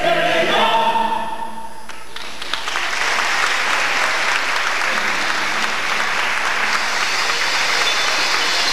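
A choir-style song with accompaniment ends about a second in. After a short lull, the audience breaks into steady applause that carries on.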